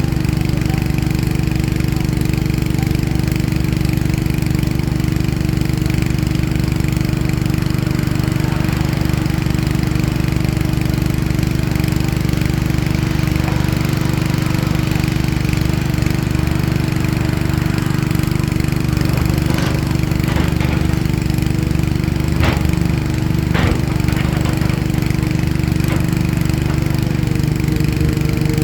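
Heavy diesel engine of a CAT excavator running steadily at a constant pitch, with a few sharp knocks about two-thirds of the way through.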